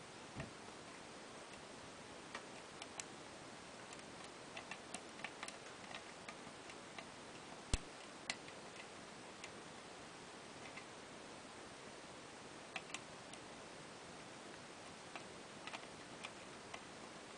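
Scattered light metallic clicks of a lock pick working the pin tumblers of an old brass Bird pin-tumbler rim cylinder during single-pin picking, over a faint steady hiss; one sharper click a little under eight seconds in.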